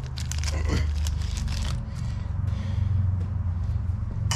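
Small plastic parts bag crinkling as it is handled and opened for about the first two seconds, over a steady low hum, with a sharp click near the end.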